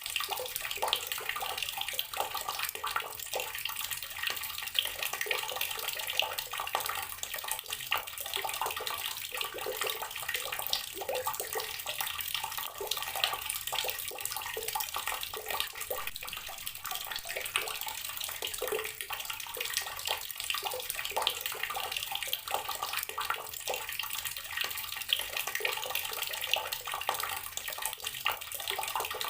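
Water running steadily from a garden tap, splashing continuously with many small irregular spatters.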